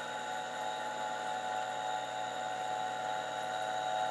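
Steady hum with several constant tones from a running TRS-80 Model II, its cooling fan and 8-inch floppy drive motor turning. No head-stepping clicks: the drive is not responding to the inserted diskette.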